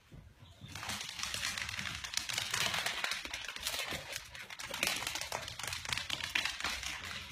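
Pigs' trotters clattering rapidly on a hard wooden floor as they run, a dense, irregular patter of clicks.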